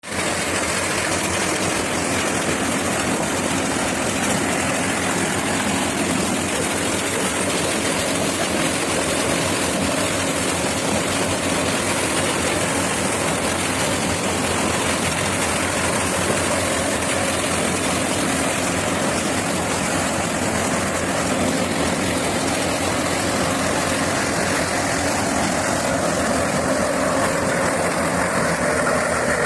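Corn harvester running steadily, a dense, even mechanical noise from its engine and machinery.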